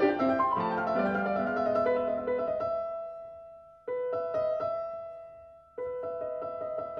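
Background piano music: a solo piano playing notes and held chords that fade away, then start again abruptly twice.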